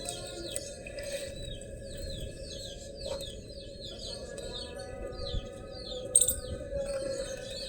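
Small bird-like chirps, short and falling in pitch, repeating about two to three times a second over steady held tones. A single sharp crack comes about six seconds in.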